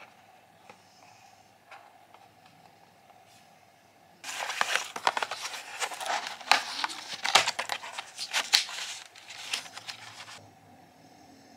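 A thin cardboard carton being torn open by hand, a dense crackly tearing and crinkling. It starts abruptly about four seconds in and stops about a second before the end.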